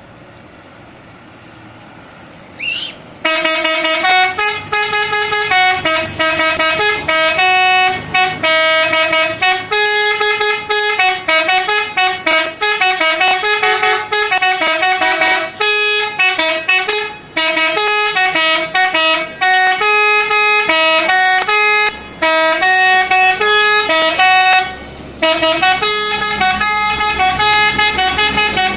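Indonesian 'telolet' bus horn: a set of multi-tone air horns playing a quick melody of stepped notes. It starts about three seconds in after a short rising sweep and runs loud, with a few brief breaks.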